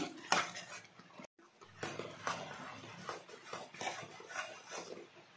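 Metal slotted ladle scraping and stirring thick, cooking milk mixture in an aluminium kadai: faint, irregular scrapes and light knocks against the pan.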